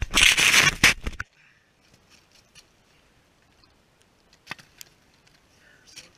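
Loud crunching of footsteps on snow-covered ice for just over a second, cutting off abruptly; then quiet, with a few faint clicks as the wooden tip-up is lifted and the line handled at the ice hole.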